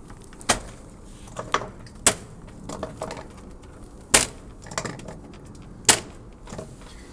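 Sharp clicks and knocks, about six of them spread unevenly, the loudest three at roughly two-second intervals. They come from the tester handling the ring plate on the face of a Retrotec blower door fan, setting up the fan.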